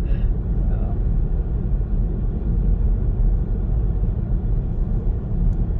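Steady low rumble of a car driving at speed on an expressway, the tyre and engine noise heard from inside the car.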